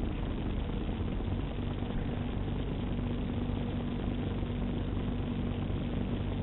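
Utility truck's engine idling steadily: a constant low hum with no change in speed.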